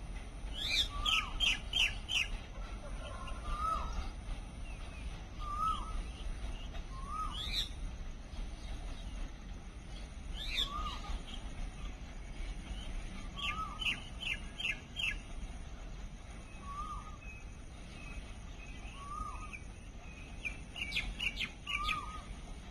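Birds calling: short rising chirps every second or two, with three bursts of four or five quick, higher notes, over a steady low rumble.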